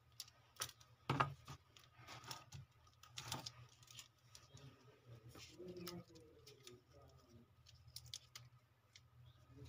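Faint clicks and taps of a smartphone's plastic housing, battery and flex cable being handled and fitted, the sharpest about a second in and a few more around three seconds and near the end, over a steady low hum.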